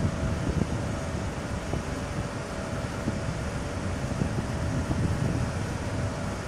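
HarbourCat catamaran ferry's engines running steadily under way: a low, fluctuating rumble with a thin steady hum above it.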